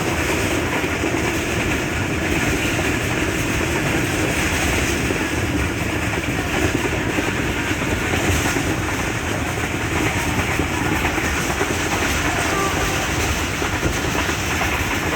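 Millat Express passenger train running at speed, heard from on board: a steady rumble and rush of the carriage and wheels on the rails.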